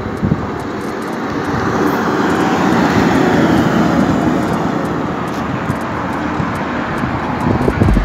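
Cab-over semi-truck with a loaded flatbed trailer driving past at speed. Its engine and tyre noise swells as it approaches, is loudest as it passes about three to four seconds in, and then fades.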